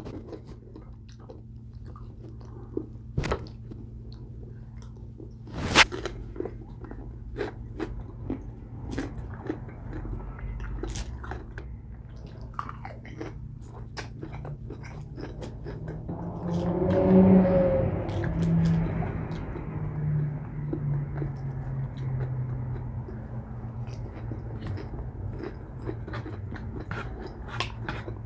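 Close-miked chewing and crunching of salad, with wet clicks and crackles all through. A brief muffled hum, the loudest sound, comes about two-thirds of the way in.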